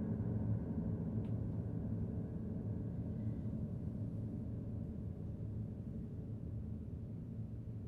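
Strings of a bare, partly dismantled upright piano ringing together at many pitches and slowly dying away, with a faint click about a second in.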